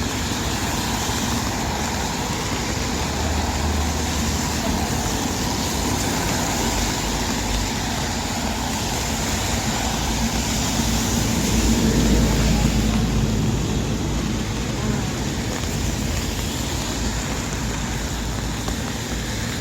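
Busy city street in the rain: a steady hiss of rain and tyres on the wet road, with vehicles passing. The loudest pass comes about twelve seconds in, with a low rumble.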